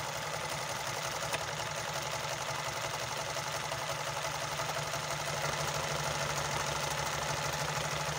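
Electric Olimpia multi-stitch domestic sewing machine running steadily at speed, stitching through a band of fabric; it sounds very good.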